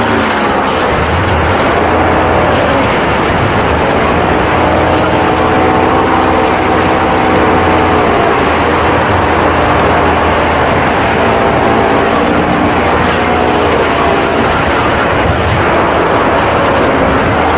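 Paramotor engine and propeller running steadily in flight, the engine's pitch drifting slightly up and down as its speed changes.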